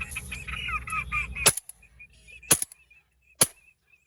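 Ducks calling rapidly, then three shotgun shots about a second apart.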